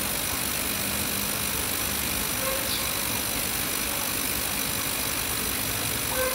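Ultrasonic cleaner running: a steady hiss and hum from the tank.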